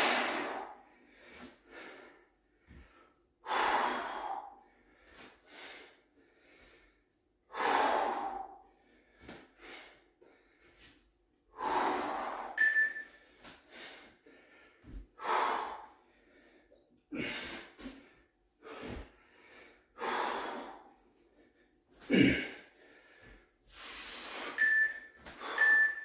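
A man breathing hard while exercising, with a loud breathy exhale every two to four seconds. Near the end, short high beeps about a second apart come from an interval timer counting down the last seconds.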